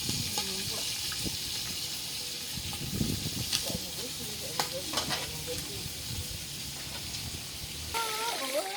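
Steady sizzling of food frying in oil in a pot over a wood fire, with scattered sharp crackles and clicks.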